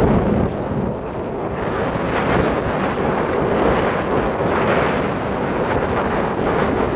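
Strong wind buffeting the microphone over the rush of breaking sea waves on a beach, a loud, steady roar that swells and eases slowly.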